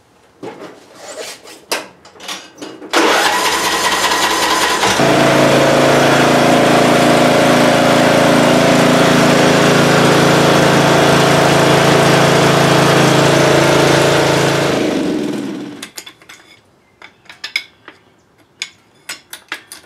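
Riding lawn mower's engine starting about three seconds in, running steadily for about ten seconds, then shut off and winding down. A few light knocks and clicks come before and after it.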